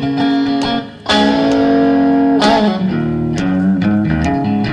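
Blues song in an instrumental passage: electric guitar playing sustained, ringing notes over the band, with a short drop-off about a second in before a long held note.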